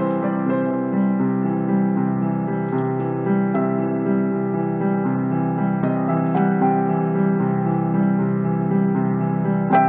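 Slow background keyboard music of long held chords, a new chord sounding about every second.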